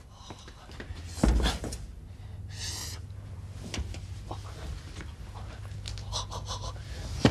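A man gasping and panting in pain from a burned hand, with a thump about a second in and a sharp hissing breath a second or so later.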